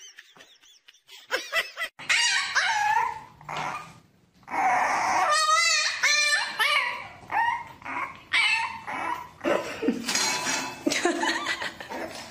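Dog vocalising: a few high, bending whining calls, then after a short pause a puppy yapping and whimpering over and over, one call quavering.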